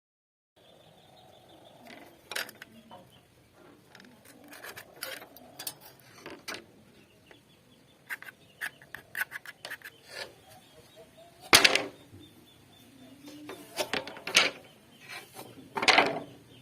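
Hand woodworking on a timber beam: scattered scraping and rubbing with short knocks, and several louder sharp knocks in the second half.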